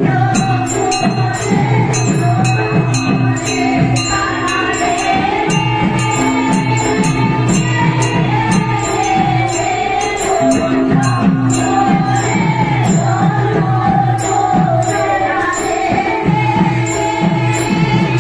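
Manipuri devotional singing accompanied by drumming and clashing hand cymbals, in a fast, steady rhythm.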